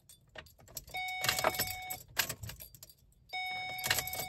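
Keys jangling and clicking in the ignition of a 2008 Ford Escape as the key is cycled from off to run, the start of the TPMS sensor relearn procedure. A steady electronic chime from the dashboard sounds twice, about a second each time, roughly two seconds apart.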